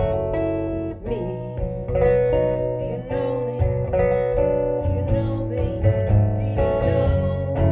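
Solo acoustic guitar strumming chords in a steady rhythm, amplified through a live PA.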